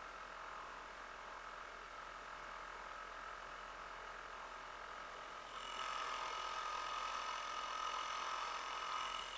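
50-year-old Johnson 2 HP Seahorse two-stroke outboard running steadily, pushing the canoe along. It gets louder about halfway through.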